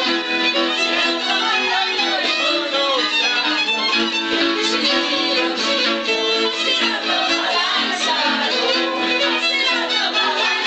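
Folk dance music led by a fiddle playing a quick melody over held lower notes.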